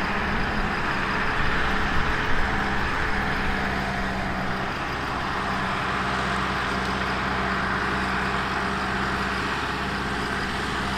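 Farm tractor engine running steadily while it works a spinning hay-making implement.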